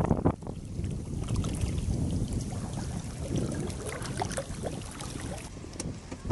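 Wind rumbling and buffeting on the microphone, over the lapping of choppy river water.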